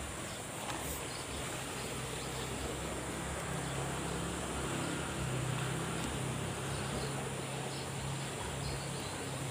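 Outdoor ambience: a steady high insect buzz, with a low droning hum that builds from about a second and a half in and eases near the end.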